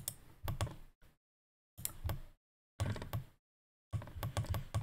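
Computer mouse clicking in short groups of sharp clicks, with the sound cutting out to complete silence between groups.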